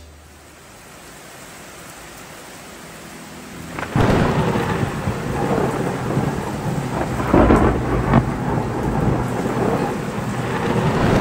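Rain falling, then a sudden thunderclap about four seconds in. Thunder rumbles on over the rain, with a second loud crack a little past the middle.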